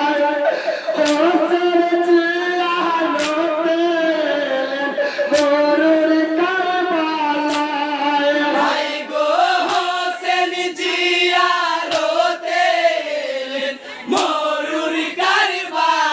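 Marsiya (jari gaan), a Bengali Muharram lament, sung in a wavering, chant-like melody, with a sharp beat about every two seconds.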